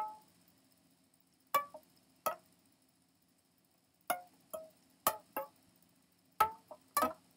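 Improvised solo guitar: about ten sparse, single plucked notes, each short and quickly dying away, with a silent pause of over a second in the middle.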